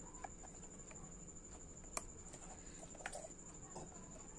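Faint handling sounds of thick ground urad dal batter going from a mixer-grinder jar into a steel bowl: soft wet sounds with a few small sharp clicks, the clearest about two and three seconds in, over a steady faint high whine.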